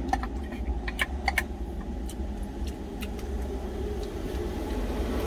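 Steady low hum of the idling truck heard inside the cab, with a few light clicks of a utensil against a food container in the first second or so.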